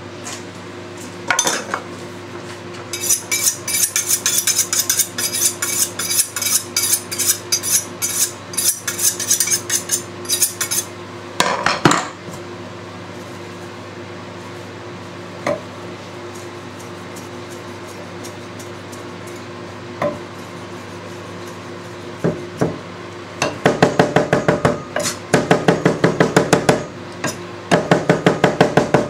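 Chef's knife chopping parsley on a thick end-grain wooden chopping block: a run of rapid chops from about three seconds in to about ten, then a long lull broken by a few single knocks, then fast, even chopping again from about twenty-three seconds on. A steady hum from a running microwave oven sits underneath.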